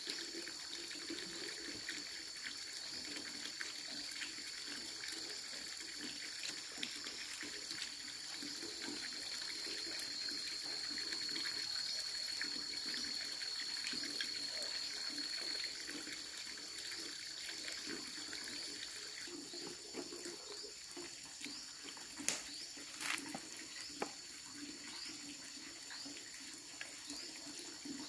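Running water, steady throughout, with a steady high-pitched whine above it and a few sharp clicks about two-thirds of the way through.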